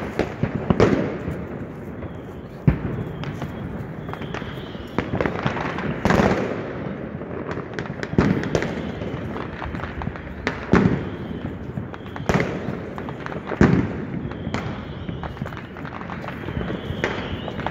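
New Year's Eve fireworks and firecrackers going off all around: irregular sharp bangs, each with an echo trailing after it, over a constant crackle of more distant bangs.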